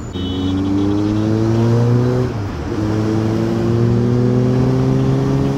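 Kawasaki Z900's inline-four engine pulling under acceleration, its pitch rising steadily, then dipping briefly at an upshift about two and a half seconds in before rising again.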